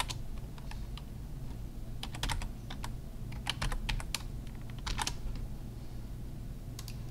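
Typing on a computer keyboard: scattered key clicks in short clusters, over a low steady hum.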